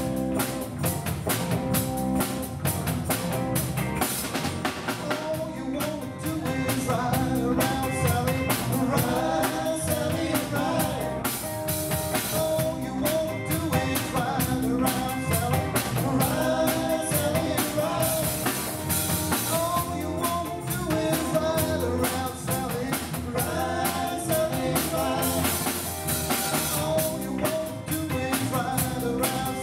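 Live band playing a song with a female lead vocal, electric guitar, bass guitar and drum kit, heard through the hall's PA.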